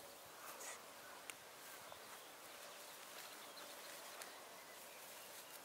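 Near silence: faint outdoor ambience, with a single soft click a little over a second in.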